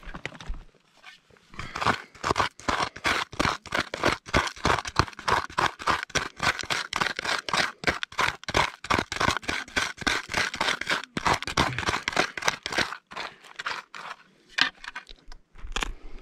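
A hand scoop digging and scraping into rocky, gravelly soil in quick strokes, about four a second, while a detector target is dug out. The strokes stop about thirteen seconds in, with a few single scrapes near the end.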